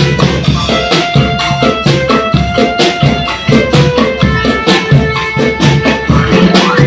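Marching band playing in a street parade: drums keep a dense, rapid beat under a melody of held notes.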